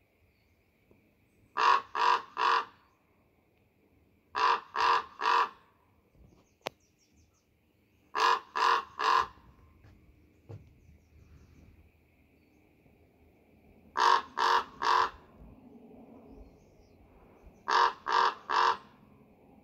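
Raven calling: five bursts of three short calls in quick succession, each burst a few seconds apart.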